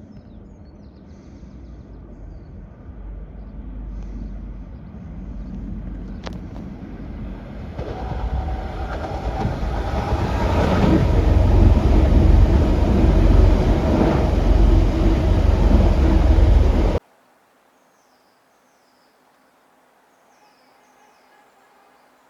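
A diesel train approaches and passes, its rumble growing steadily louder to a peak, then cutting off suddenly. Afterwards it is quiet, with faint birdsong.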